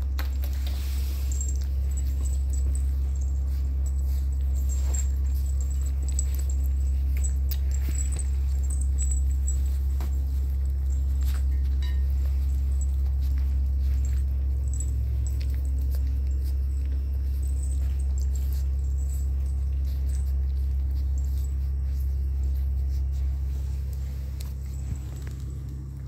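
Puppies suckling at their mother, with many faint soft clicks and smacks from their mouths, over a steady low hum that fades near the end.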